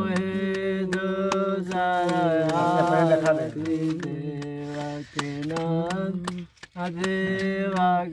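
Hindu devotional aarti song, a voice singing long held, gliding notes over light, regular ticking percussion, with a short break in the singing about six and a half seconds in.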